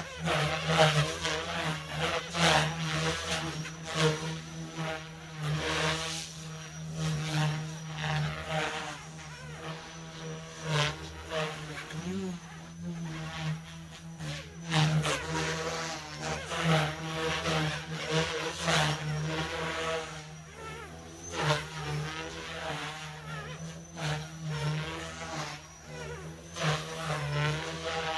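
Goosky S2 mini RC helicopter flying: its brushless motors whine and the rotor blades buzz steadily, the pitch and loudness rising and falling repeatedly as the rotor speeds up and slows down in manoeuvres.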